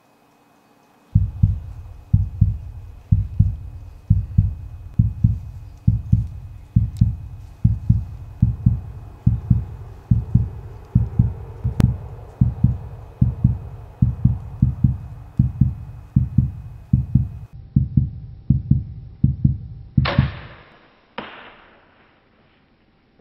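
Heartbeat sound effect, a deep lub-dub double thump about once a second, running steadily until a crossbow is fired near the end. The shot is a loud sharp crack, followed about a second later by a second, weaker crack.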